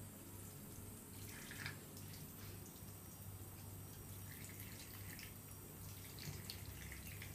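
Thin stream of tap water running from a bathroom faucet onto a wet kitten and into the washbasin, faint, with soft splashes and drips; the splashing picks up about halfway through as a front paw is rinsed under the stream.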